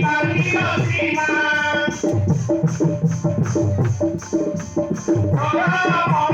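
Music: a folk song with singing over a quick, steady beat of drums and a shaker. The voice drops out about two seconds in and comes back near the end.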